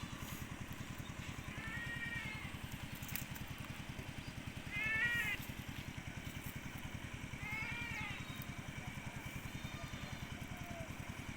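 A small engine running steadily with a fast, even pulse. Over it, a high call that rises and falls in pitch comes about every three seconds.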